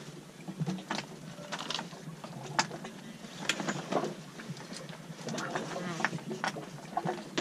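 A person biting into and chewing a mouthful of burger, with muffled murmured 'mm' sounds and scattered small clicks.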